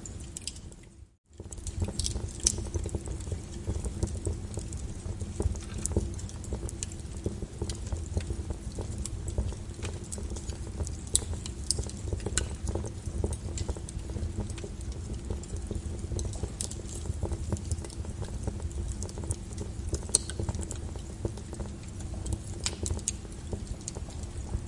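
Brown noise, a steady deep hiss, under irregular sharp crackles and pops of a burning fire. The sound drops out briefly about a second in, then resumes.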